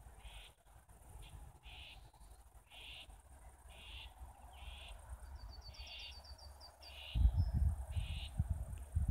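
Wind buffeting the microphone, much stronger from about seven seconds in, over short chirps repeated about once a second by a small animal in the meadow, with a brief quick run of high bird notes near the middle.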